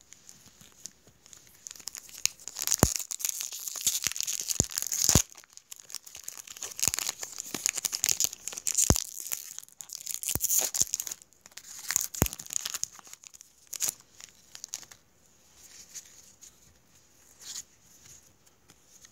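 Foil-lined Pokémon booster pack wrapper being torn open and crinkled: a long run of crackling rips and crinkles with sharp snaps, loudest in the first half and thinning to lighter rustles near the end.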